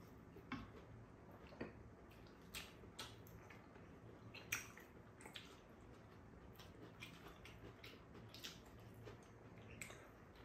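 Quiet table eating: scattered light clicks and taps of spoons and chopsticks against bowls and a frying pan, with soft chewing. The sharpest click comes about four and a half seconds in.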